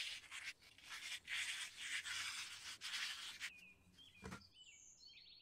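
Abrasive pad scouring the inside of a copper pipe tee fitting in quick back-and-forth strokes, cleaning it to bare metal for soldering. The scrubbing stops about three and a half seconds in, and faint bird chirps and a single knock follow.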